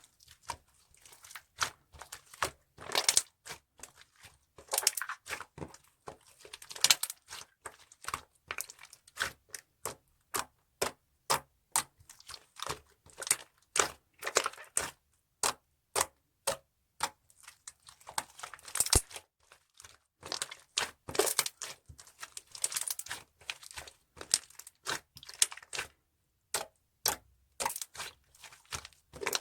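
Slime being squished and pressed by hand, giving irregular sticky clicks and crackling pops, several a second, with a few short pauses.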